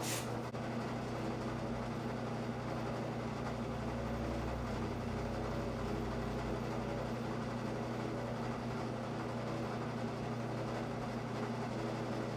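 Steady electric motor hum with no strikes or changes in speed, joined by a low rumble for a couple of seconds near the middle.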